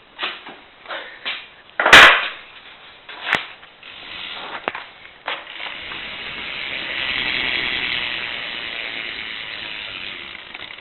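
A few knocks and one loud bang about two seconds in. Then, from about four seconds, a BMX bike's rear wheel spins freely, its hub ratcheting in a steady fast buzz that swells and then eases.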